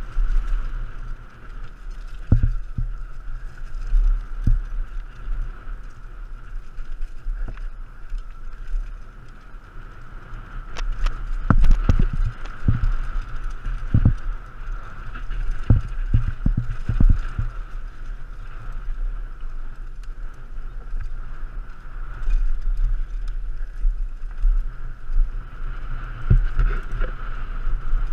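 Downhill mountain bike on a rough dirt singletrack, heard from a helmet-mounted camera: wind buffeting the microphone and a steady whir, broken by clattering knocks as the bike rattles over bumps, thickest about eleven to seventeen seconds in.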